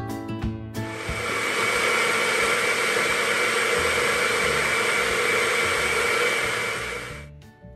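A personal bullet-style blender starts about a second in and runs steadily for about six seconds, blending berries and liquid into a smoothie, then stops near the end. Guitar background music plays before it starts and after it stops.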